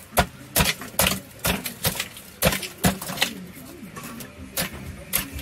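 Knife point stabbing into block ice to break it up: a series of sharp, irregular knocks and cracks, about ten in five seconds.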